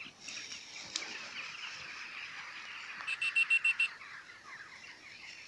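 Tall dry grass rustling as a Weimaraner bounds through it on a retrieve. About three seconds in, a bird gives a quick run of six or seven high chirps, the loudest sound here.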